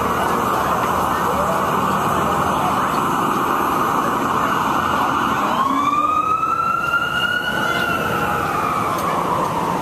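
An emergency vehicle's siren wails once about halfway through, rising quickly and then falling slowly, over steady street noise.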